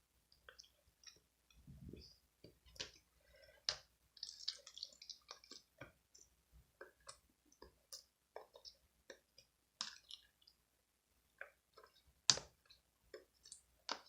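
Faint, irregular small clicks and soft handling noises, scattered through, with a few sharper clicks standing out.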